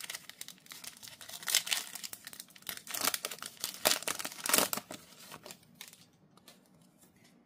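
Foil wrapper of a Marvel Platinum trading-card pack being torn open and crinkled by hand, with a run of sharp crackles that dies away after about five seconds as the cards are slid out.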